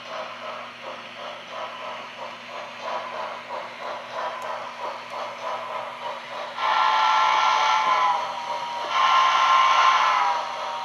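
HO scale model steam locomotive's sound decoder: steady chuffing at about four beats a second, then two long whistle blasts about six and a half and nine seconds in, each sagging in pitch as it ends.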